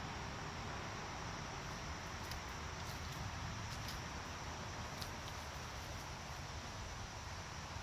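Steady evening outdoor ambience: a faint continuous high insect drone over a low rumble, with a few faint clicks.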